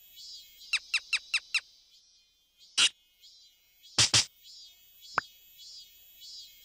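Cartoon sound effects: five quick high squeaky chirps, each falling in pitch, then a short sharp pop, two quick plops and a single tick.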